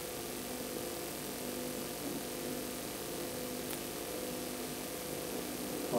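Steady electrical mains hum with a faint hiss under it, carried on the soundtrack of old video footage. Nothing else stands out.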